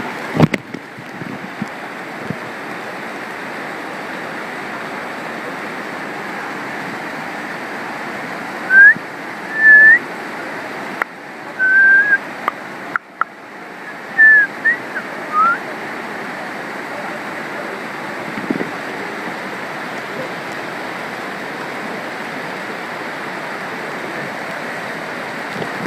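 Mountain stream running steadily. In the middle stretch come about half a dozen short, loud whistled chirps, some rising and some falling in pitch, with a couple of clicks.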